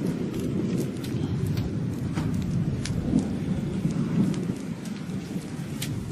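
Thunderstorm: a steady low rumble with rain, and scattered sharp ticks through it.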